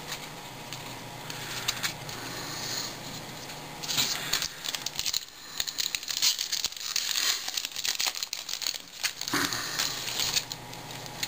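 Hands shuffling and handling baseball cards and crinkling a foil card-pack wrapper. The crackling and rustling is densest from about four seconds in until shortly before the end.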